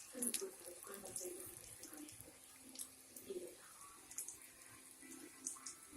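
Flattened plantain slices (tostones) frying in hot oil: a faint, steady sizzle with small scattered crackles.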